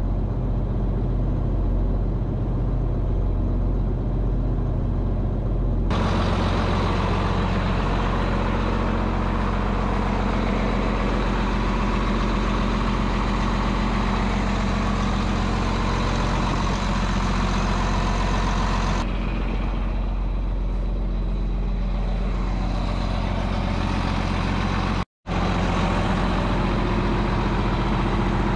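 John Deere 4640 tractor's six-cylinder diesel engine running steadily. The sound changes abruptly about six seconds in and again at about nineteen seconds, and cuts out for an instant near the end.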